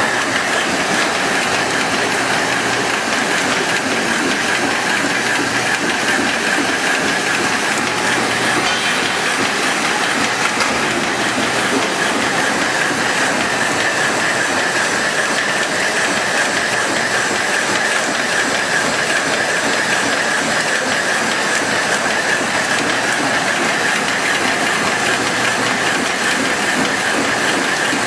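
Dishwasher tablet press running at steady speed: a constant, loud mechanical clatter and hiss.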